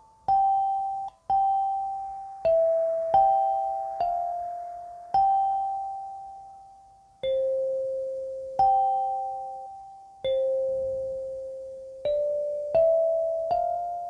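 Muslady 17-key clear acrylic kalimba in C, its steel tines plucked by the thumbs in a slow melody. About a dozen bell-like notes, each with a sharp pluck that rings and fades before the next, sometimes two tines together.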